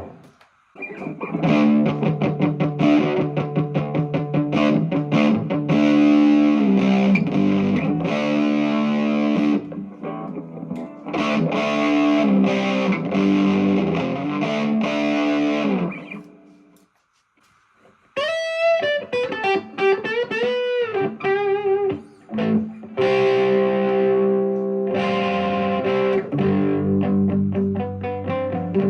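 Electric guitar, an Epiphone SG Special played through a Vox MV50AC amp into a 10-inch speaker cabinet, playing chords and riffs. It stops briefly about two-thirds of the way in, then plays a few lead notes bent up and down with vibrato before returning to chords.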